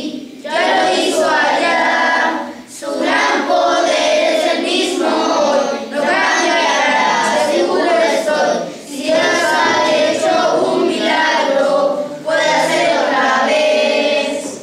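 Group of children and teenagers singing a Spanish worship song together from song sheets, in phrases of about three seconds with short breaks between them.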